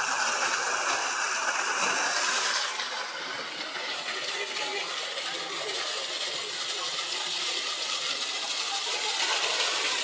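Steady rush and splash of an artificial waterfall pouring into a pool, a little softer about three seconds in.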